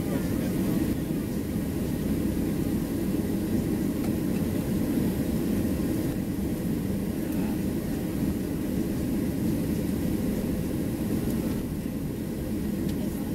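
Steady low rumble inside the cabin of a Boeing 737-700 taxiing, its CFM56-7B engines running at idle thrust.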